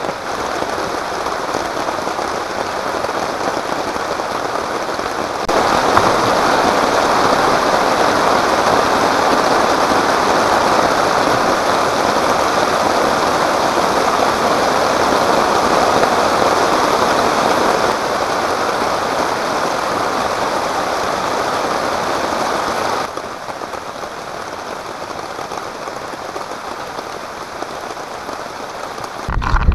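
Steady rain falling, a dense even hiss that turns louder about five seconds in and drops back down a few seconds before the end. A short low thump comes right at the end.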